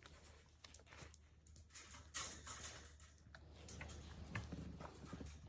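Faint clicking, light rattling and scraping as a Cavalier King Charles Spaniel puppy shifts about and pushes against a wire exercise pen on a tile floor, with a louder cluster of clicks about two seconds in. A low steady hum lies underneath.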